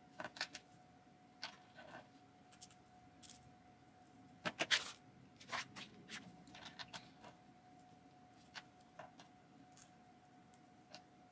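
Small plastic Nendoroid figure parts clicking and tapping as arms and hands are pulled off and pushed back onto the figure. The clicks are faint and scattered, with a louder cluster of taps about halfway through.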